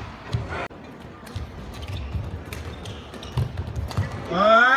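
Badminton rally: sharp cracks of rackets striking the shuttlecock and the thud and squeak of players' shoes on the court mat, over a steady arena hum. Near the end a loud shout rises in pitch.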